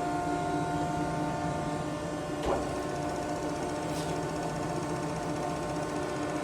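JARBE universal cylindrical grinder running under power: a steady machine hum with several held tones, and a single short knock about two and a half seconds in.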